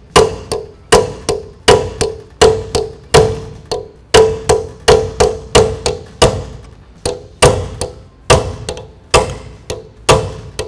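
Hammer striking a punch against the edge of a new front CV axle seal, driving it down into the steering knuckle. The blows come steadily, about two a second, each with a short metallic ring.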